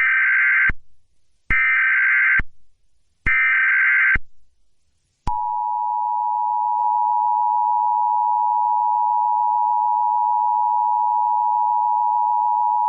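Emergency Alert System SAME header: three buzzy bursts of digital data tones, each just under a second long, about a second apart. Then, about five seconds in, the steady two-tone EAS attention signal starts and holds, heralding a child abduction (Amber) alert.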